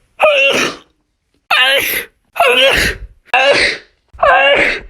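A person sneezing five times in a row, about one sneeze a second, each a loud pitched 'achoo': a sneezing fit.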